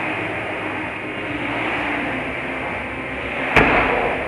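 Steady background din of a busy gym with one loud, heavy thud about three and a half seconds in.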